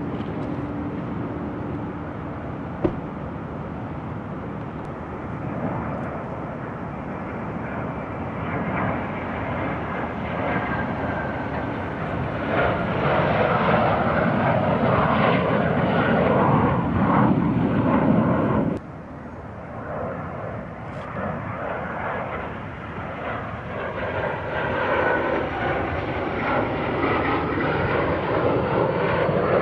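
F-16 fighter jet's single turbofan engine on landing approach with gear down, a loud rushing jet noise that swells over several seconds. It cuts off abruptly about two-thirds of the way through, then builds again as another approach comes in.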